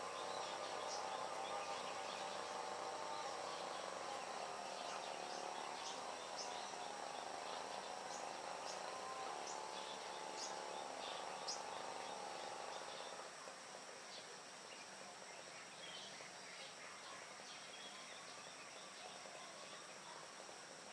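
Faint dawn ambience of rural Bali: a steady high insect and cricket drone with scattered short bird chirps. A distant steady droning hum fades out a little over halfway through.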